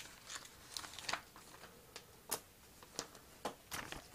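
Protective plastic film being peeled off a new laptop LCD screen panel: faint, irregular crackles and sharp clicks.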